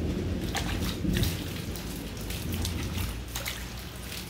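Rain falling on wet ground, with scattered close drops splashing. A low thunder rumble dies away over the first second or so.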